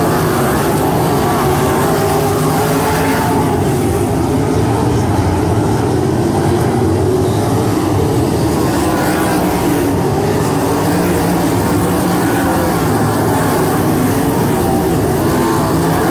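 A pack of 305 winged sprint cars racing, several 305 cubic-inch V8 engines running together, loud and steady.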